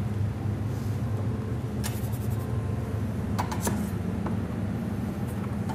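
A few light clicks and taps of a metal dough scraper against a plastic dough proofing box, over a steady low hum.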